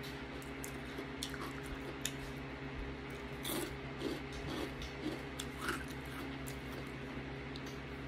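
A person chewing fried banana with closed lips, making soft wet mouth clicks and lip smacks, most of them in the middle. Under it runs a steady low hum.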